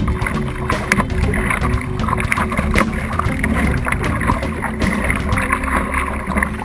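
Water rushing and slapping against the nose of a stand-up paddleboard right at the board-mounted microphone, with wind buffeting the microphone and frequent short splashes and knocks as the paddle strokes.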